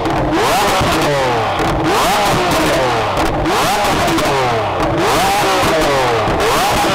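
Lamborghini Aventador LP700-4's V12 engine revved repeatedly while stationary: about five blips, one every second and a half, each climbing sharply and falling away slowly.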